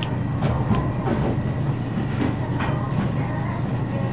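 A person chewing a mouthful of rice, with a few light clicks, over a steady low background hum.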